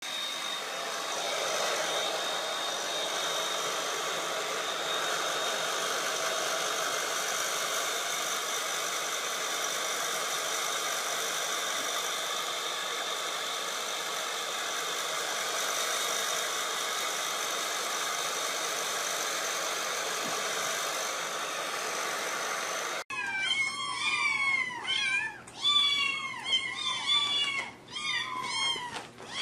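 A hair dryer blowing steadily, with a constant whine over its rushing air. About 23 seconds in it cuts off and several small kittens meow over one another in quick, high-pitched mews.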